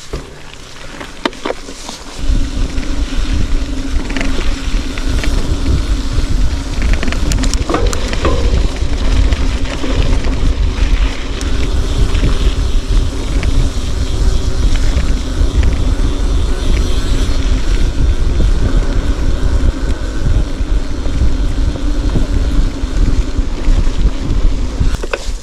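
Wind buffeting the microphone over a steady hum, as when moving at speed, starting about two seconds in and dropping away at the very end.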